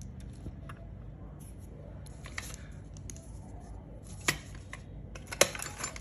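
Metal Zippo lighter cases being handled: a few light metallic clicks and taps as one case is set down and another picked up, the two sharpest about four and five and a half seconds in.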